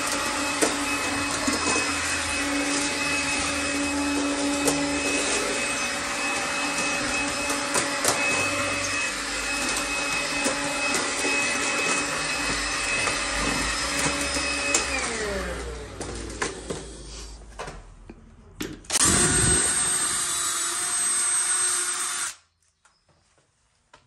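Cordless stick vacuum running steadily as it sucks up wood debris, with small clicks and knocks throughout. It winds down about fifteen seconds in, is switched on again about four seconds later, and cuts off suddenly a few seconds after that.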